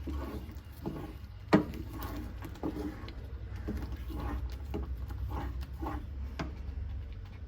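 Kitchen utensil working a pan of thickened milk sauce with chopped garlic in it: scattered light knocks and scrapes, with one sharp clink about a second and a half in, over a low steady hum.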